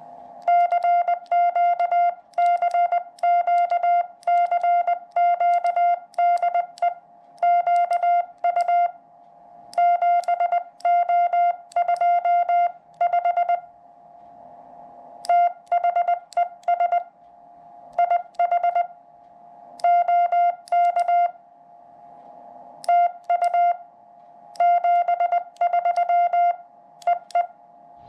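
Morse code sidetone from a QRP Labs QCX Mini CW transceiver in practice mode, keyed by hand with a QU-7025 paddle: a steady beep of about 700 Hz sent as runs of dits and dahs, with longer pauses between words.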